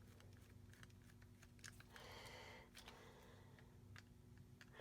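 Faint small clicks and a brief scrape of a screwdriver turning the tiny screw on a toy train's plastic battery cover, over a low steady hum.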